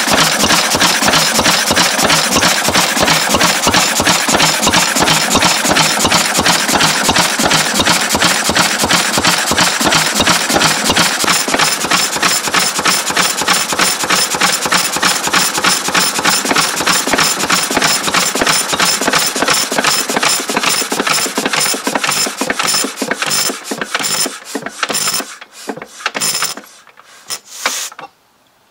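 Lister B single-cylinder stationary engine running with an even, rapid beat. From about two-thirds of the way in the beat slows and weakens as the engine loses speed, and it coasts to a stop a little before the end.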